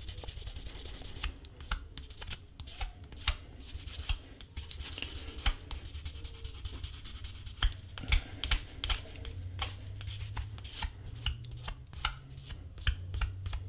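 Canvas cloth rubbed fast back and forth along the painted, beeswax-paraffin-waxed edge of a leather piece, a dry scratchy rubbing in rapid, uneven strokes. Going fast warms the wax to buff and burnish the edge.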